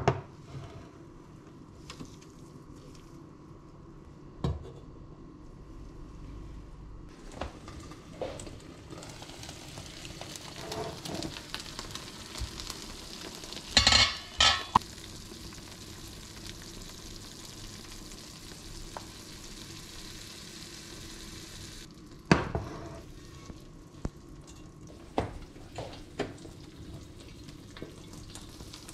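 Lasagna with béchamel sizzling in a frying pan, with sharp metal clanks of the pan and its stainless steel lid, loudest about halfway through and again about three-quarters of the way in.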